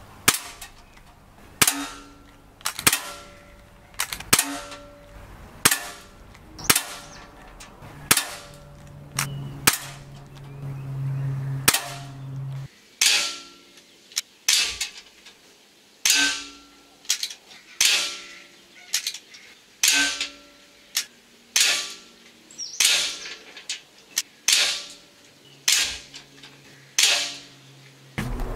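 Weihrauch HW45 .177 spring-piston air pistol fired over and over, a sharp crack every second or two with the reloading cut out. Many shots are followed by a brief metallic ring as the pellet strikes the steel pellet trap behind the target.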